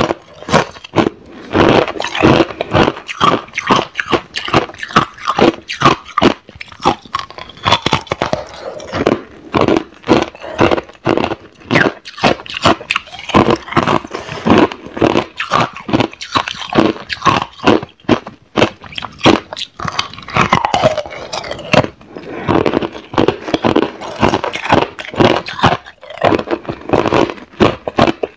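Hard clear ice being bitten and chewed, close to a clip-on microphone: a dense, loud run of sharp crunches and crackles as the chunks crack between the teeth.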